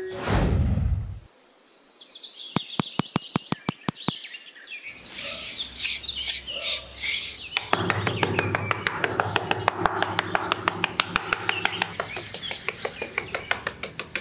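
Birds chirping, with rapid even clicking. From about halfway, a small metal trowel scrapes and smooths sand in quick, regular strokes, several a second.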